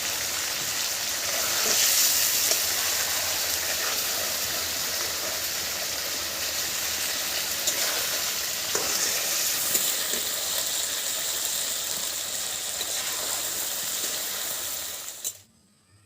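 Food sizzling as it fries in hot oil in a pan, with a few light knocks of stirring. The sizzle cuts off abruptly near the end.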